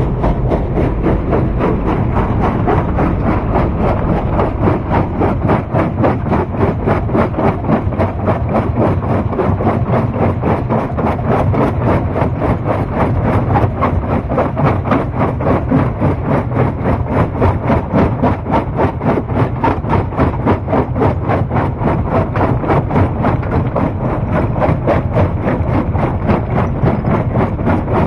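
Heavy stone-crushing machinery running steadily, with a loud, rapid, even pulsing throughout.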